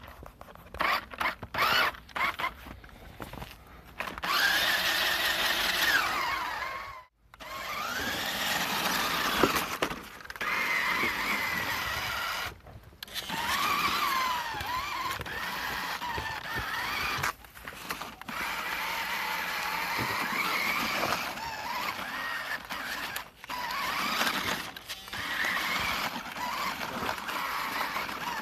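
Toy RC truck's electric motor and gears whining as it drives through snow, the pitch rising and falling with the throttle. A few short blips come first, then long runs with brief stops about seven and twelve seconds in.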